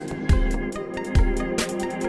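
Electronic background music with a heavy beat: two deep kick drums with long booming low tails, a sharp snare-like hit near the end, and quick high ticks over a steady chord.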